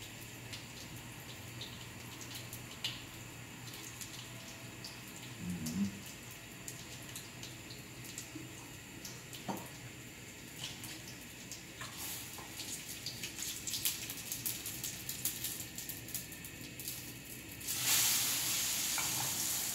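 Potato pancakes frying in oil in a frying pan: a steady sizzle speckled with small crackles and pops that grow busier after about twelve seconds. Near the end the sizzling suddenly jumps much louder as the pan is worked.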